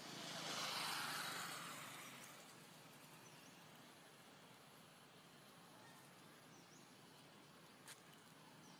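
Quiet outdoor ambience: a soft rushing swell of noise that rises and fades over the first two seconds or so, then a low steady hiss with a few faint high chirps and a single sharp click near the end.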